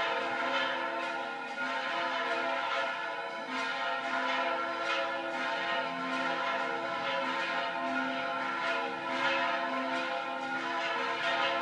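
Church bells pealing: several bells struck again and again, one or two strikes a second, their tones ringing on and overlapping into a continuous peal.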